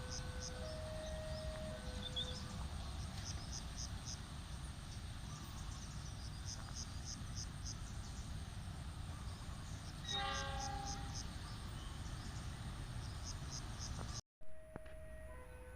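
Railway trackside sound: a low steady rumble with insects chirping in regular high-pitched bursts, and an electronic level-crossing alarm alternating between two tones for the first two seconds. About ten seconds in, a train horn gives one short blast; the sound drops out briefly near the end and the two-tone alarm starts again.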